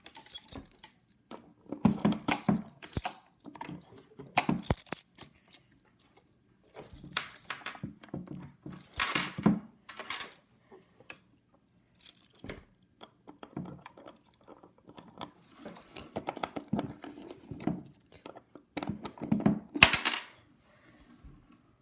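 Toy keys of a wooden doorbell house rattling and clicking as they are handled and worked in the door locks, with light knocks of the wooden parts. The clicking and rattling come in irregular bursts on and off, the sharpest near the end.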